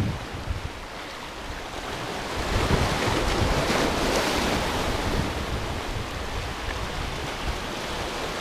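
Small waves washing and foaming over rocks along a rocky shoreline, with wind buffeting the microphone. The wash grows louder about two and a half seconds in and eases off again.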